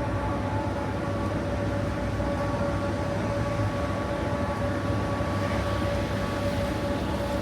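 Steady city street noise: a low rumble of traffic with a constant mechanical hum holding two steady tones.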